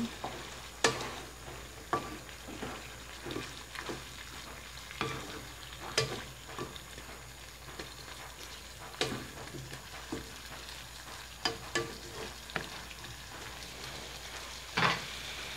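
A spatula stirring chicken livers, gizzards and chunks of potato and carrot in adobo sauce in a coated wok. The food sizzles low and steady, with irregular sharp knocks and scrapes as the spatula hits the pan.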